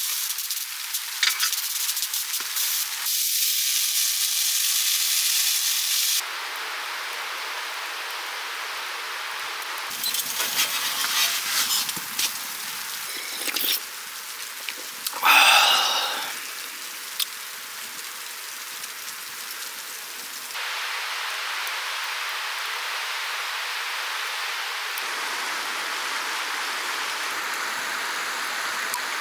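Wood-burning camping stove: the fire hissing and crackling, with snow sizzling as it melts in a metal cup on the hot stove top. The sound changes abruptly several times, with a louder hissing burst about halfway.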